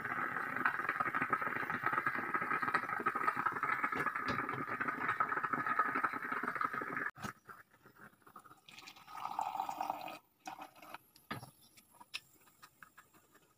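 Stainless steel stovetop moka pot gurgling and sputtering as the coffee brews up into its top chamber, cut off abruptly about seven seconds in. Then a short pour and a spoon clinking against a ceramic mug as it stirs.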